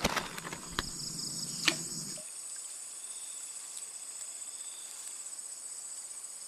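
Steady high-pitched drone of insects calling in a swamp. A few sharp knocks and a low rumble in the first two seconds stop suddenly about two seconds in.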